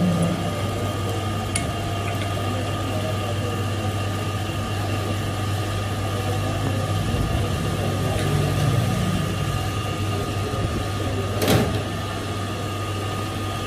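Metal lathe running with a steady hum, with a light metal click early on and one sharper metal clank near the end.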